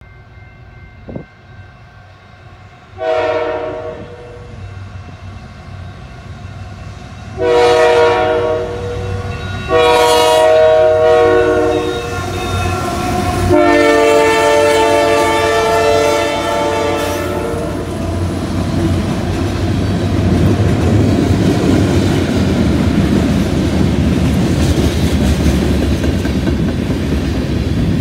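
Diesel freight locomotives' multi-chime air horn sounds four times as the train approaches and passes: a short blast, then three longer ones, the last about four seconds long, over low engine rumble. From about two-thirds of the way in, the steady rumble and clatter of freight cars rolling past on the rails.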